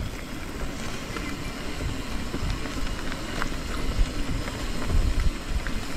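Bike tyres rolling over a rough gravel trail, with small crunches and crackles and a low rumble of wind buffeting the camera microphone.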